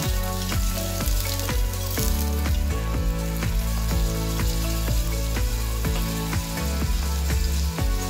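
Sliced onions sizzling as they fry in oil in a steel saucepan, stirred with a wooden spoon. Background music with a steady beat, about two a second, and a bass line that comes in at the start plays over it and is the loudest sound.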